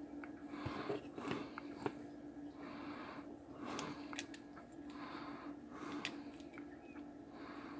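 Small sharp clicks and scrapes of a DIP chip's metal pins being worked into a socket on a circuit board by hand, several of them scattered through, over a soft hiss that swells about once a second and a steady low hum.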